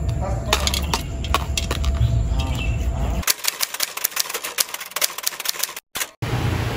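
Rapid typewriter key clicks, starting about three seconds in and briefly cutting out near the end, over a quiet background. Before them, a low steady rumble with a few light clicks and rustles.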